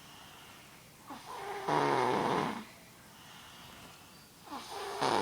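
A sleeping young boy snoring loudly: one long snore about a second in, quieter breathing after it, and the next snore starting near the end.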